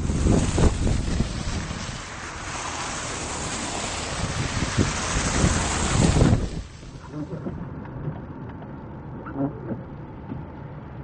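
Storm wind gusting hard against the microphone, a loud rushing with low buffeting, which drops off suddenly about six seconds in to a quieter steady wind.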